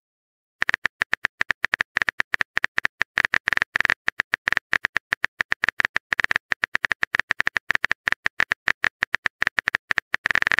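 Keyboard typing sound effect of a chat-story app: a rapid, uneven run of sharp clicks, starting about half a second in, as a message is typed out.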